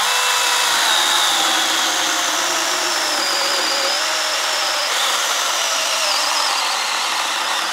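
Cordless mini chainsaw running at full speed and cutting through a branch: a high, steady motor-and-chain whine that starts abruptly and sinks slowly in pitch under load.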